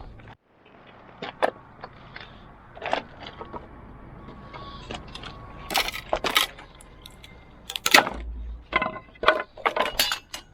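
Wooden pallet being broken apart: a run of irregular sharp knocks, cracks and splintering of boards and nails, some briefly ringing, coming thicker and louder in the second half.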